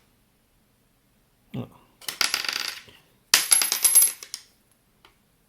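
Small metal parts clinking and clattering on a hard surface. A dull knock comes first, then two short bursts of metallic clatter; the second has a thin high ring.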